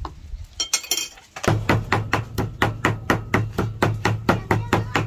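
Kitchen knife rapidly chopping shrimp on a round wooden chopping block, a steady run of about five strokes a second, each with a dull thud, starting about a second and a half in. A few light clinks come just before the chopping starts.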